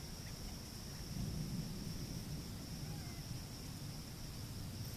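Insects, crickets or cicadas, holding one steady high-pitched buzz. Beneath it runs a low rumble that swells about a second in.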